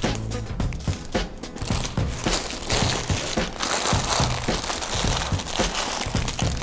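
Sealed plastic bags of building bricks crinkling and rustling as they are lifted out of a cardboard box and handled on a tabletop, with a dense run of short crackles throughout.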